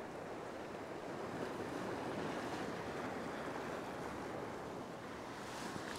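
Ocean surf washing against a rock shelf: a steady rush of water that swells a little about two seconds in, with some wind on the microphone.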